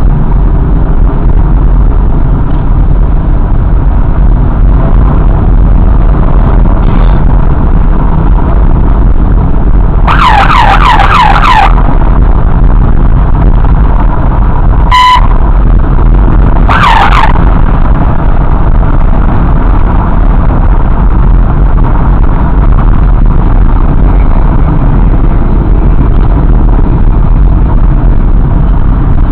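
Steady, loud wind and engine noise from riding at road speed. About ten seconds in, a police escort siren gives a short burst of rapid falling yelps, then comes a short horn toot, and a single siren yelp follows a couple of seconds later.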